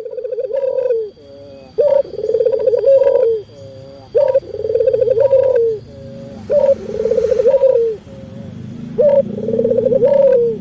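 A dove cooing in a repeated phrase, about five times: each call is a short note followed by a longer, trembling coo that drops at the end.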